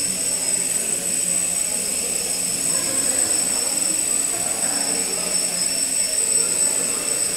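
Small quadcopter's four electric motors and propellers running steadily as it climbs and hovers, a constant buzz with a high-pitched whine.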